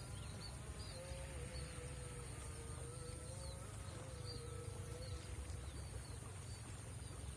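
Riverside ambience: a faint wavering insect buzz over a steady low rush, with scattered small high chirps and a thin steady high whine.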